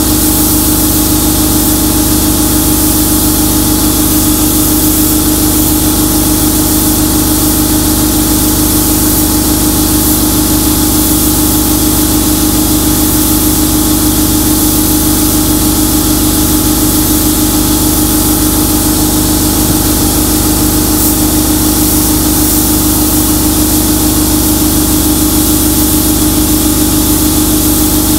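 Glass bead blasting inside a sandblast cabinet: a steady hiss of compressed air and bead media hitting a steel speaker box, over a constant motor hum from the blasting setup. The air compressor is keeping up under full blasting.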